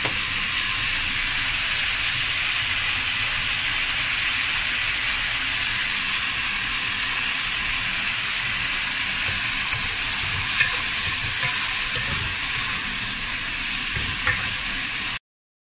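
Yardlong beans and garlic sizzling steadily in hot oil in a wok as they are stir-fried, with a few spatula scrapes against the pan near the end. The sizzle cuts off abruptly just before the end.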